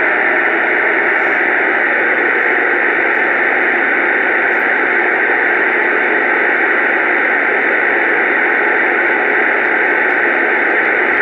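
Two-way radio speaker giving out a steady hiss of static with the squelch open, no signal coming through.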